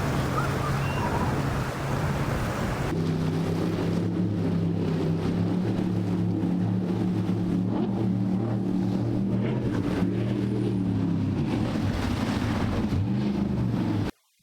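Motorboat engines running with a steady low drone. For the first three seconds the drone sits under heavy wind and surf noise, then it turns clearer with less wind. The sound cuts off abruptly just before the end.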